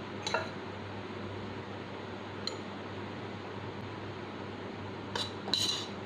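A utensil clinking lightly against cups as grated coconut and puttu flour are spooned in: a few short clinks, two close together near the end.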